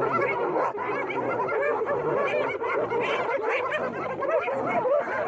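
A pack of spotted hyenas giggling: many short, overlapping rising-and-falling calls in a dense, unbroken chorus. This is the excited giggling of hyenas crowding and mobbing a lioness.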